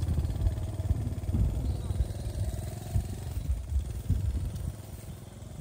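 A small engine running with a fast, even low rumble that fades away near the end, with voices talking over it.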